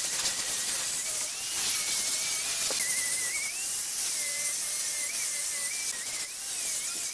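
Handheld electric angle grinder with a sanding disc sanding a wooden vase: a high whine that wavers up and down in pitch as the disc is pressed into and eased off the wood, over a steady sanding hiss.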